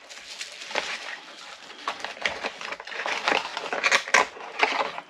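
Bubble wrap and plastic packaging crinkling and crackling irregularly as a small electronic unit is lifted out of its cardboard box and unwrapped, loudest about four seconds in.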